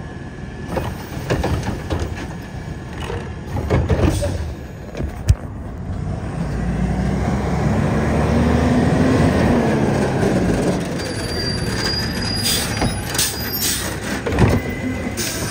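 Automated side-loader garbage truck at work: the lifting arm tips a wheeled trash cart into the hopper with knocks and clanks, one sharp bang about five seconds in. The diesel engine then revs up and back down as the truck pulls forward, and more clanks come near the end as the arm grabs the next cart.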